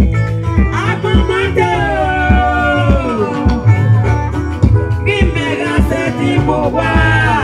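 Live gospel band music: a woman sings long gliding phrases into a microphone over a heavy bass line and drums.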